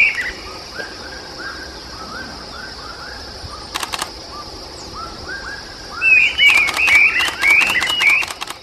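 Bird song: repeated arched, down-slurred whistled notes in quick series, loudest in the last couple of seconds, with softer lower notes in between. Short bursts of rapid clicking come about four seconds in and again near the end, over a steady high hiss.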